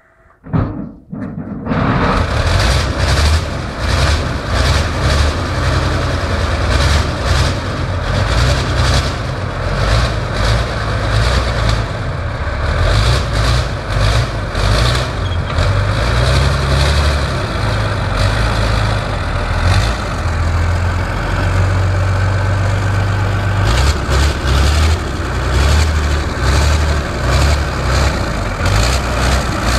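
Soviet ATS-59G tracked artillery tractor's V-12 diesel engine catching with a few bursts in the first two seconds, then running loud and unevenly on a winter cold start as the tractor moves off on its tracks.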